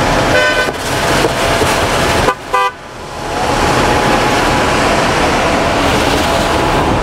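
A vehicle horn toots twice briefly, about half a second and about two and a half seconds in, over a loud, steady outdoor din of traffic.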